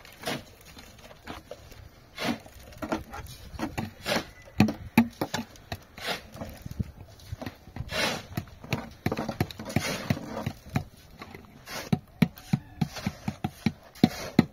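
Irregular knocks and hits at uneven intervals, growing denser near the end, mixed with a few longer scraping noises.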